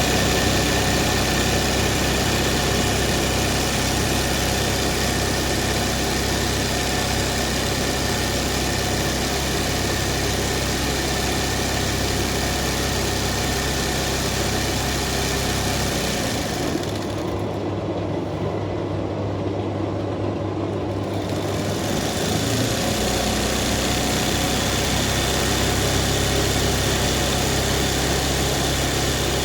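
Embroidery machine running, stitching a zari (kasida) design with a steady mechanical whirr and hiss. A little past halfway the high-pitched part falls away for about five seconds, leaving a lower hum, and then comes back.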